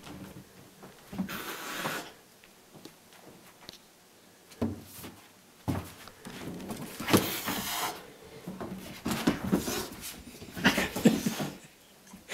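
Cat hissing and growling in several angry bursts at a husky puppy, the longest about seven seconds in, with a couple of sharp thumps from the scuffle.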